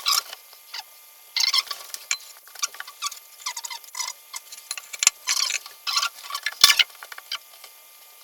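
Small toilet-fixing hardware (bolts, rubber washers and butterfly nuts) being handled and fitted: a quick, irregular run of light clicks and rattles.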